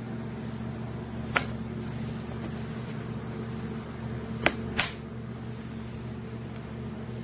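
A steady machine hum with three sharp clicks, one about a second and a half in and two close together about four and a half seconds in.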